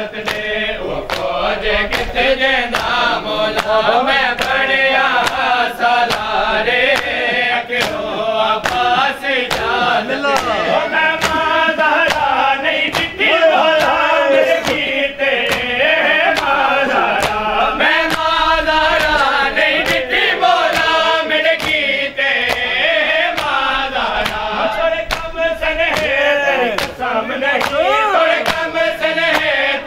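A group of men chanting a mourning lament (nauha) together, with a steady beat of sharp hand-slaps from matam (chest-beating) running through it.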